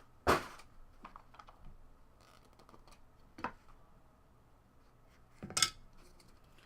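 Trading cards and their packaging being handled on a table: a few sharp clicks and taps, one just after the start, a softer one midway and a sharp one about five and a half seconds in, with faint small ticks between.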